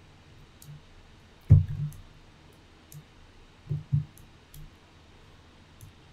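Computer mouse clicks and knocks on a desk as the mouse is worked: one sharp click about one and a half seconds in is the loudest, followed by a few softer clicks around three and four seconds in.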